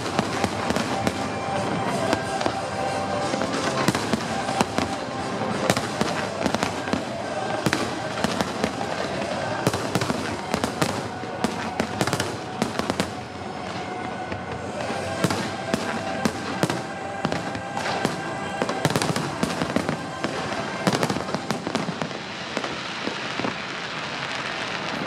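Aerial fireworks display: rapid, overlapping bangs and crackles of shells bursting overhead. Near the end the bangs thin out into crackling.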